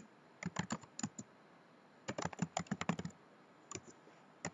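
Typing on a computer keyboard: two quick runs of keystrokes with a pause between them, then a few scattered key presses near the end.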